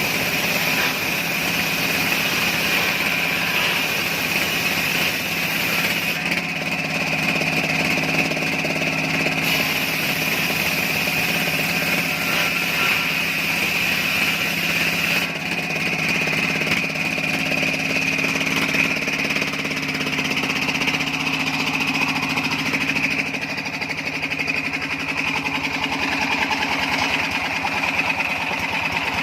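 An engine running steadily at a constant speed, with a steady higher hiss above its drone; its low tone changes and thins about two-thirds of the way through.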